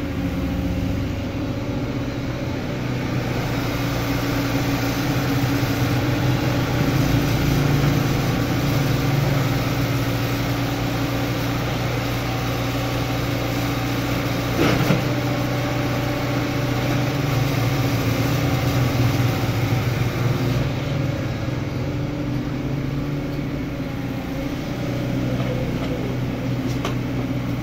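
Excavator's diesel engine running steadily while working, its loudness swelling and easing a little with the load, with one sharp knock about halfway through.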